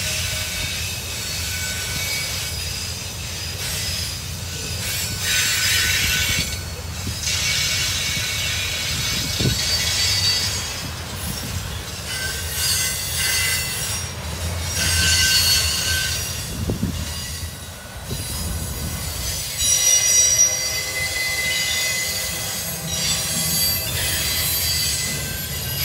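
CSX freight train of autorack cars rolling past: a steady low rumble of steel wheels on rail, with high-pitched wheel squeal coming and going throughout.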